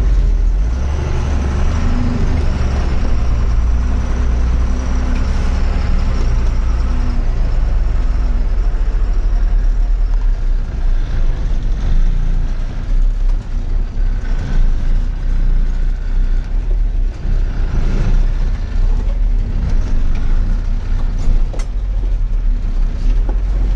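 Truck's diesel engine running steadily, heard from inside the cab as the truck crawls over a rough, rocky road. Scattered cab rattles and knocks, with a couple of sharper knocks near the end.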